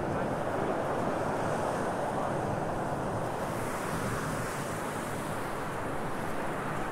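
Small waves breaking and washing up on a sandy beach, a steady surf wash, with wind buffeting the microphone.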